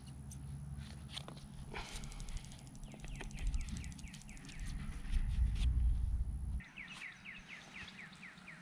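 A songbird repeats a quick series of down-slurred chirps over a low rumble. The rumble grows louder and then cuts off abruptly about six and a half seconds in. A few soft knocks come from PVC pipe being handled in its coupling.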